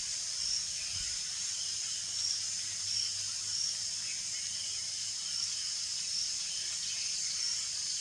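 Steady chorus of insects shrilling high, with a pulse standing out over it a bit under twice a second.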